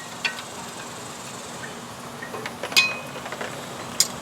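A few light metallic clinks and taps as brake pads, clips and caliper hardware are handled during a front disc brake pad change, one louder clink with a short ring about three quarters of the way in.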